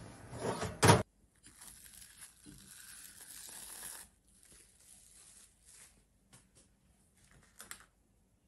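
An oven's fan humming, then one loud sharp knock about a second in. After that come about three seconds of soft noise and a few faint clicks of kitchen handling.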